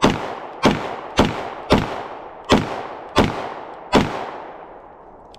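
Springfield Echelon 4.0C 9mm pistol fired seven times in a quick, slightly uneven string, each shot ringing out with an echo; the last shot comes about four seconds in and its echo fades away.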